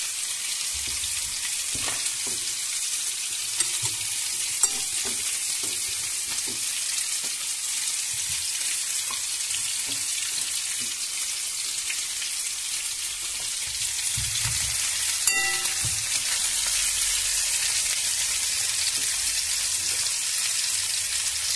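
Marinated moray eel pieces and small whole fish sizzling in oil in a frying pan, a steady hiss, with a few light clicks.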